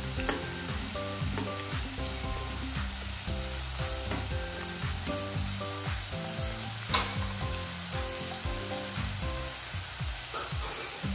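Frozen shoestring french fries sizzling in hot oil in a frying pan, with a metal spatula stirring them near the start. A single sharp clack comes about seven seconds in. Soft background music plays under the frying.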